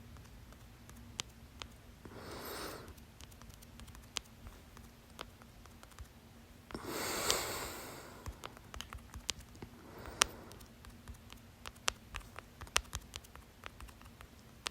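A person with the hiccups: sharp, short hiccup catches come at irregular intervals, the loudest about ten seconds in, between audible breaths, with a heavier breath about seven seconds in.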